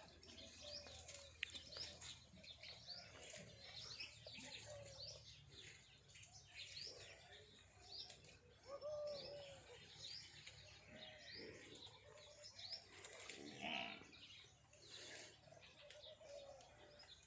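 Faint birdsong: many short, quick chirps from small birds, with a few lower cooing calls now and then.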